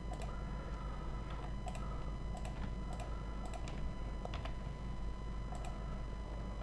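Computer mouse and keyboard clicks, a sharp click or a quick pair of clicks every second or so, over a steady low electrical hum.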